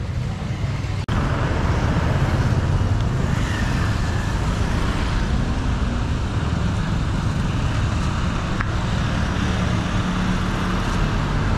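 Busy city road traffic: a steady mix of car and motorbike engines running and passing, which turns louder after a sudden break about a second in.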